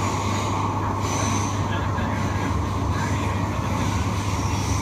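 Steady rumble and hum of an electric passenger train running, heard from inside the carriage.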